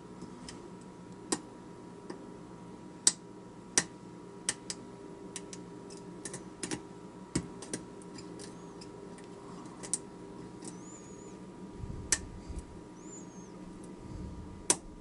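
Lock pick and tension wrench working the pins of a cast-aluminium mortise lock cylinder during single-pin picking: irregular light clicks and ticks, with a few sharper ones.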